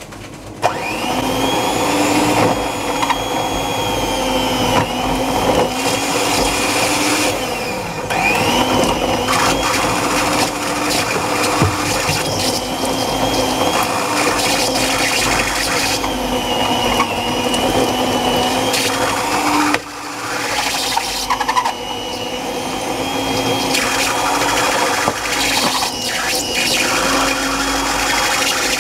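Electric stand mixer beating butter and sugar at high speed, creaming them until pale and fluffy. It switches on just under a second in and runs steadily with a motor hum and a high whine that waver slightly in pitch as the load shifts, dipping briefly about twenty seconds in.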